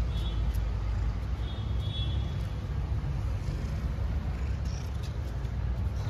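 A tabby kitten gives two short, high-pitched meows, one right at the start and one about two seconds in, over a steady low rumble.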